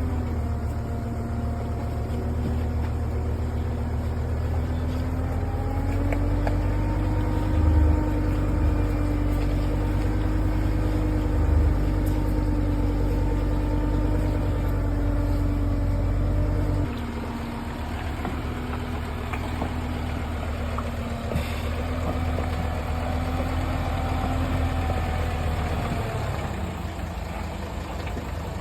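Engine of a heavy forestry machine running steadily, its pitch drifting slightly up and down as it works. The sound changes abruptly about seventeen seconds in.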